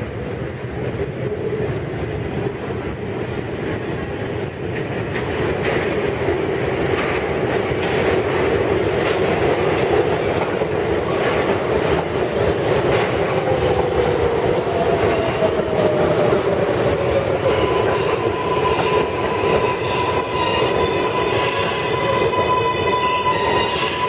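New York City subway R142A train pulling into the station along a curved track, with a steady rumble of wheels on the rails. Midway a tone falls in pitch, and in the last third high-pitched squealing comes in as the train slows alongside the platform.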